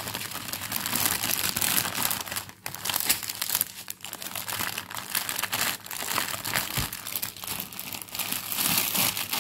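Plastic packaging of a diamond painting kit crinkling and rustling continuously as it is handled, with many small crackles.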